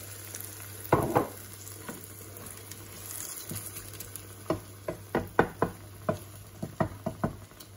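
Beaten egg frying in a nonstick pan with a faint sizzle, with a wooden spatula scraping and tapping the pan in a quick run of strokes over the second half. A double knock comes about a second in, under a steady low hum.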